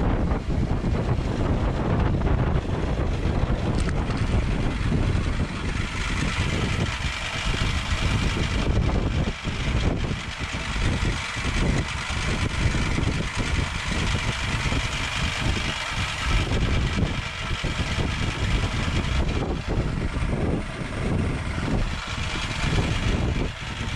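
Tractor engine running, heavily buffeted by wind on the microphone, with a rough, uneven rumble and a steady hiss that comes in about six seconds in.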